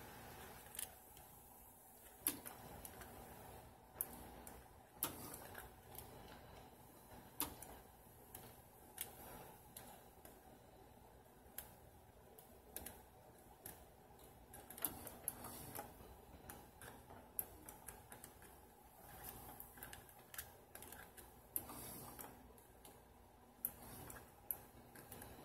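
Faint, irregular light clicks and taps from an oil tube and fingers working around the open metal mechanism of a Bernette sewing machine while it is oiled, over a faint steady hum.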